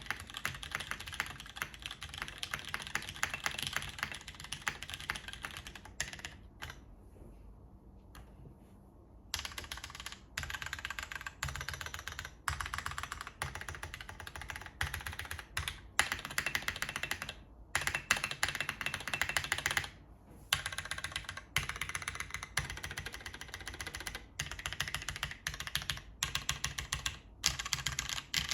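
Fast typing on a TKL mechanical keyboard with Cherry MX Brown tactile switches in an aluminium plate and DCS keycaps: dense runs of keystrokes, with a lull of about three seconds some six seconds in, then bursts broken by brief pauses.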